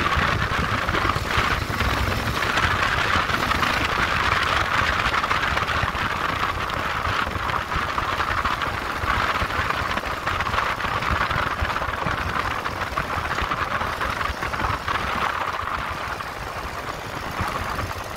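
Motorcycle engine running as the bike is ridden at low speed, with a steady rushing noise over the low engine rumble. It eases off slightly near the end.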